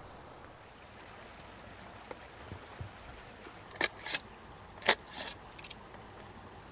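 Sharp metal clicks and clinks from the steel panels, hinges and rods of a folding Firebox stove being handled and unfolded. There are a few faint ticks first, then a quick cluster of clicks, the loudest about five seconds in, over a steady low hiss.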